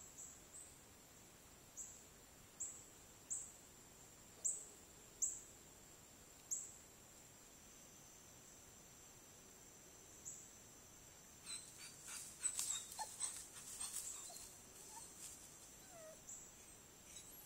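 Steady high night-insect buzz, broken by short sharp high chirps about once a second for the first several seconds. About twelve seconds in comes a flurry of scratching and rustling with a few faint dog whines.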